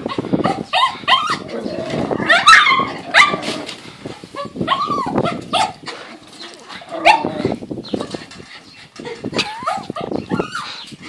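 Small terrier dogs barking and yapping in play, short high barks coming in quick, irregular runs with brief pauses between them.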